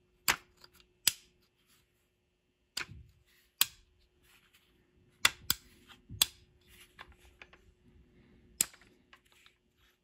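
Strike Industries ambidextrous AR-15 safety selector with a 60-degree throw being thumbed between safe and fire. It gives about eight sharp metallic clicks at irregular intervals as it snaps into its detent positions, a positive engagement from a new selector not yet broken in.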